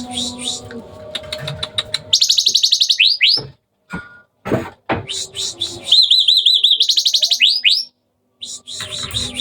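Hybrid Asian pied starling (jalak suren) singing a varied, busy song: fast rattling trills, rising whistled sweeps and sharp clicks, with a couple of brief pauses.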